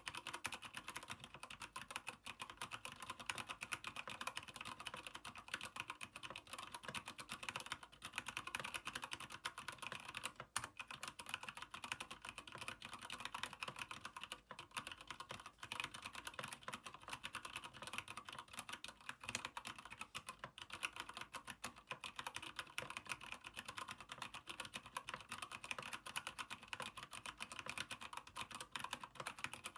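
Fast, continuous typing on a Keychron K8 mechanical keyboard with Gateron Brown tactile switches in an aluminium frame: a dense stream of keystroke clicks.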